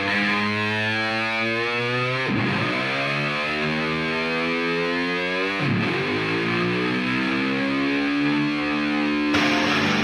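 Diesel engine of a semi truck accelerating through its gears: the engine note climbs, drops sharply at a shift about two seconds in, climbs again, and shifts once more near the middle. Near the end, electric guitar music with a strummed beat comes in.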